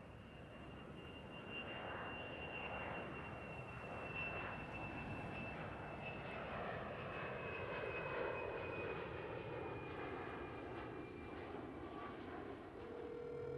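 Jet airliner flying past: a steady rush of engine noise that swells and then eases off, with a high turbine whine slowly dropping in pitch.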